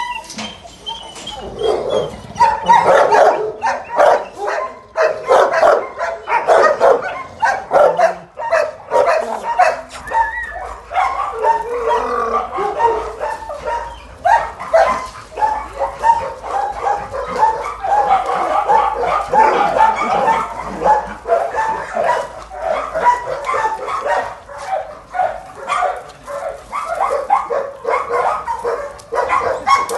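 Shelter dogs barking, a dense, almost unbroken run of barks from several dogs at once.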